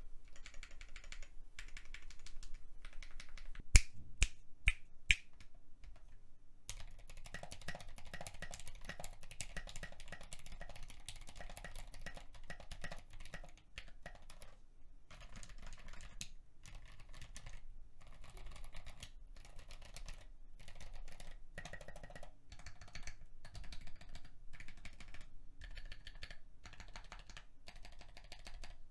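Typing on a mechanical keyboard fitted with Mint switches (68 g springs, unwiped stems, polycarbonate housings): a fast stream of key clicks, with four single louder key strikes about four to five seconds in.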